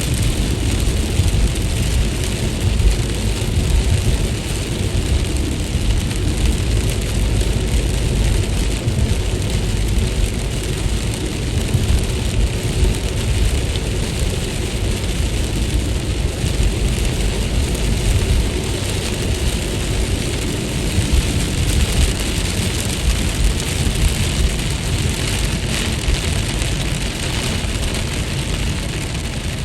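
Steady rain falling, with a deep rumble underneath that holds at a constant level.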